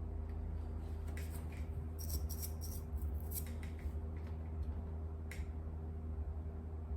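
Steady low electrical hum under a scatter of small, sharp metallic clicks and taps from small hand tools. The clicks come in clusters between about one and four seconds in, with one more a little after five seconds.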